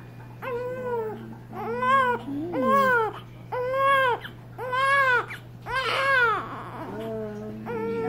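A newborn baby crying: a run of short wails, about one a second, each rising and falling in pitch.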